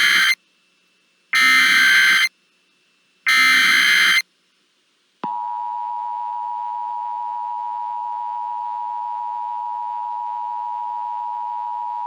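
Emergency Alert System broadcast signals: the end of one screeching digital header burst and then two more, each about a second long, followed about five seconds in by the steady two-tone EAS attention signal, which holds unbroken. Together they mark the start of a new alert message.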